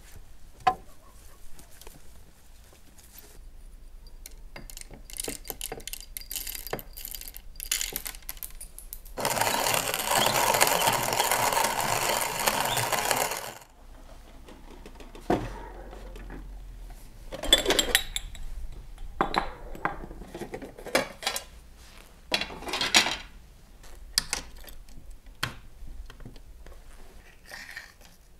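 Small metal clinks and scrapes of coffee cezves and a spoon on a sand coffee-heater tray as ground coffee is spooned out. Near the middle there are about four seconds of a loud, steady noise.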